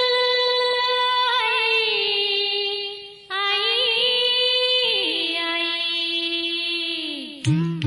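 Music: a high singing voice holding long notes with vibrato, in two phrases that each slide down in pitch near their end, with a short break about three seconds in.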